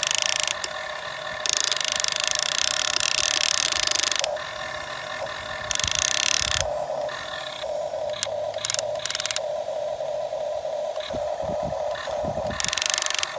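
Radio-controlled model excavator's electric motors: a steady whine, broken four times by louder, harsher buzzing spells lasting from under a second to nearly three seconds as the machine is worked.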